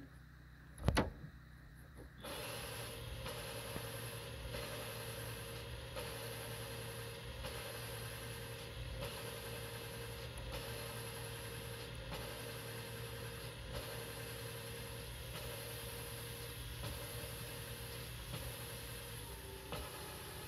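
A sharp click, then from about two seconds in a steady engine or motor running, with a tone that drops out briefly about every second and a half.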